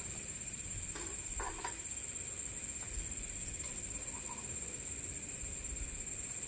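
A few soft clicks of metal tongs setting fried eggplant pieces into a ceramic bowl, about a second in. Behind them a steady high-pitched insect trill.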